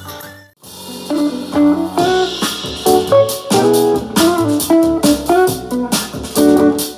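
Jazz guitar music played through a portable Bluetooth speaker in a sound test. It starts after a brief gap about half a second in, where the previous blues rock track cuts off.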